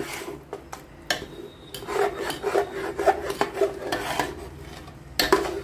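Steel spoon scraping and mashing a thick paste of boiled mutton and dal against the inside of a pressure cooker pot, in repeated rasping strokes, to cook off the last of the water.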